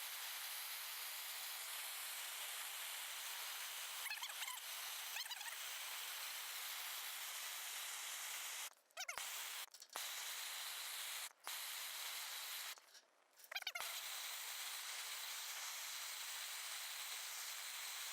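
Small handheld gas torch burning with a steady, faint hiss as it heats a plastic smart padlock. The sound drops out completely a few times for a moment.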